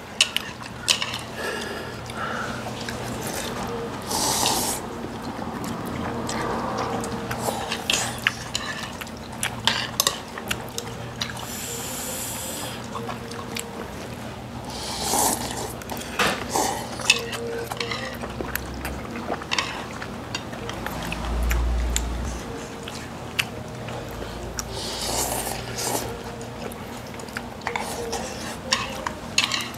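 People eating noodles: cutlery clicking against bowls, with several slurps of about a second each, over a steady low hum.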